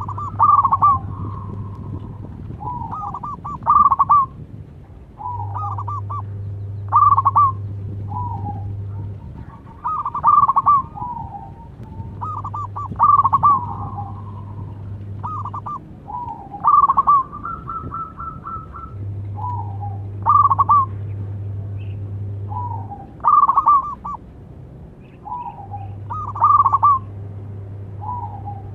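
Zebra dove (perkutut) cooing: short phrases of quick stuttering notes, repeated over and over every couple of seconds.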